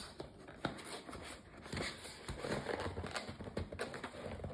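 Hands handling and fiddling with a toy's packaging while trying to open it: irregular rustling, with scattered small clicks and taps.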